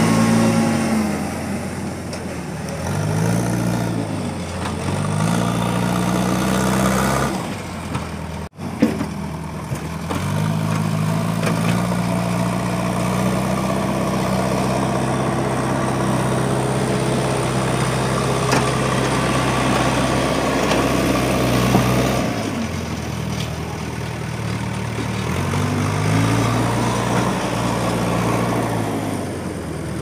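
Diesel engine of an Ashok Leyland tipper lorry pulling away over rough ground, revving up and dropping back several times as it changes gear, then holding a steady pitch for a long stretch in the middle. The sound breaks off sharply for an instant about eight seconds in.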